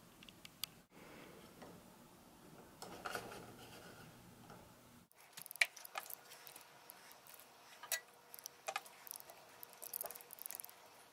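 Faint clicks and taps of a metal fork against a plate and the pot as raw chicken breasts are lifted and dropped in, with soft squishes of the raw meat.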